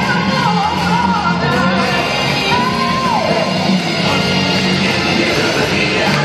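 Live gospel music: a band playing under a solo voice that sings gliding phrases and holds one long note about halfway through before dropping off.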